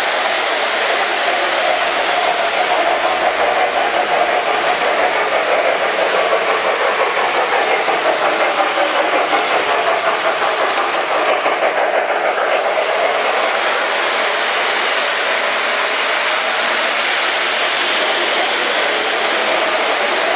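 O-gauge model trains running on three-rail track: a steady rolling rumble of wheels and motors, pulsing fast and evenly through the middle, as a Lionel Norfolk & Western J-class 4-8-4 steam locomotive pulls its passenger cars past.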